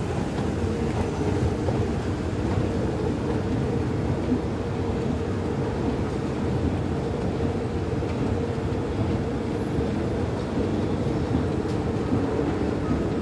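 Escalator running while being ridden: the moving steps and drive make a steady, low mechanical running noise.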